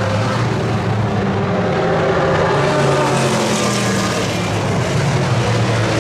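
A pack of 1960s sports racing cars (Shelby Cobras, Jaguar E-types, a Ford GT40) driving past close together, several engines running at once in a steady, loud mix of overlapping engine notes.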